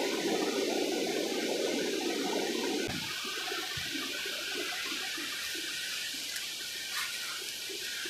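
Forest river water rushing over rocks. The rush is fuller for the first three seconds, then softens into a lighter gurgling.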